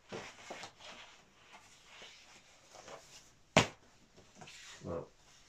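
Large paper art prints rustling and sliding as they are lifted and shuffled by hand, with one sharp tap a little past halfway and a softer thump near the end.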